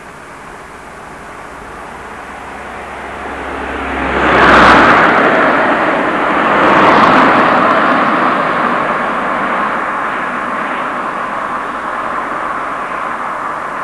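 Road traffic passing close by: a rushing tyre-and-air noise that swells to a loud peak about four and a half seconds in, peaks again around seven seconds, then slowly fades.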